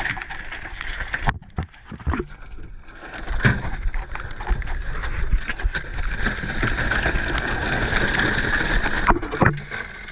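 Spiny lobsters knocking and scraping as they are shaken out of a mesh catch bag onto a pickup truck's ribbed bed liner: a few sharp knocks over a steady rushing noise.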